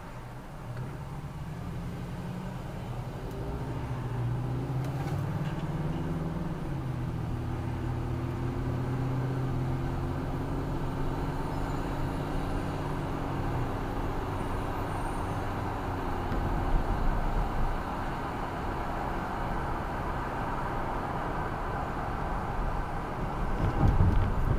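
A car driving, heard from inside the cabin. An engine note shifts and climbs in pitch over the first half, then it settles into steady tyre and road noise, with a brief louder low rumble near the end.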